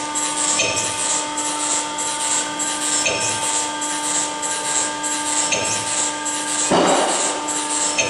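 Barwell ECO Plus rubber preforming machine running while it makes silicone O-ring preforms. It gives a steady electric hum with an even ticking about three times a second and a low pulse about every two and a half seconds, and one louder noisy burst about seven seconds in.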